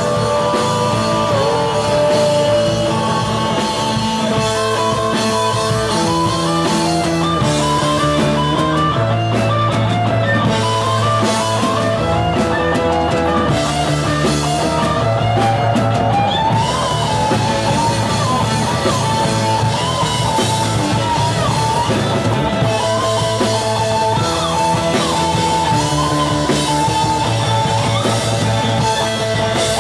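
Rock band playing live, an instrumental stretch of guitar and drum kit over a stepping bass line.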